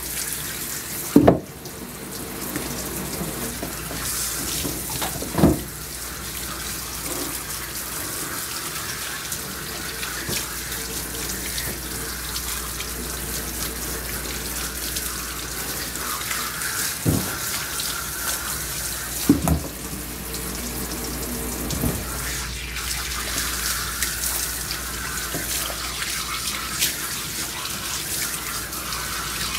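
Water spraying steadily from a hose nozzle onto a dog's wet coat and splashing into the tub. A few sharp knocks break in, the loudest about a second in and others near 5, 17 and 19 seconds.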